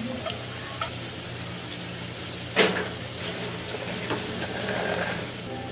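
Steady sizzling of meat frying on a tabletop grill, with a low steady hum underneath and one sharp clink about two and a half seconds in.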